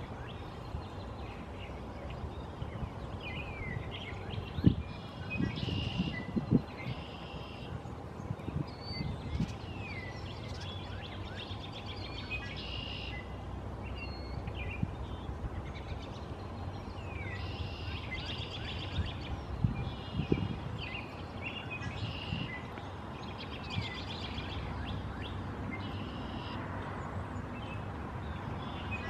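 Small birds chirping, many short calls, some sliding downward, repeated throughout over a steady outdoor background hum. A few low thumps stand out, the loudest about five seconds in, more around six seconds and twenty seconds in.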